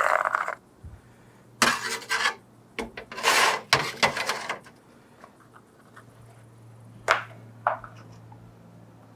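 Metal motorcycle fork parts being handled and slid apart, rubbing and clattering in several bursts over the first few seconds, then two sharp clicks near the end.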